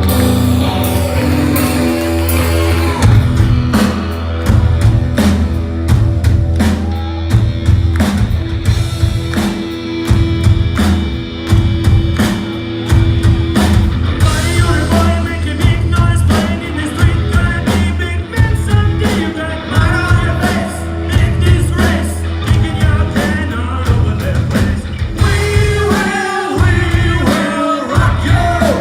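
Drum ensemble playing along to a loud rock backing track with singing; the drum hits come in steadily about three seconds in over a heavy bass line.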